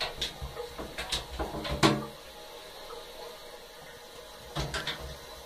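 A cat's claws and paws skittering on the hard surface of an empty bathtub as it spins about: bursts of quick clicks and taps, with one louder knock just before two seconds in and another cluster near the end.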